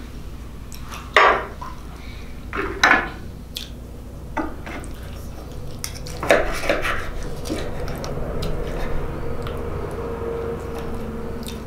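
Metal knife and fork clinking and scraping while cutting through a piece of lasagna, with a few sharp clinks.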